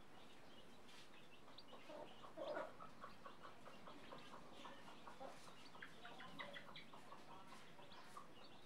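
Faint clucking of a mother hen, loudest about two and a half seconds in, with frequent short high peeping from her newly hatched chicks.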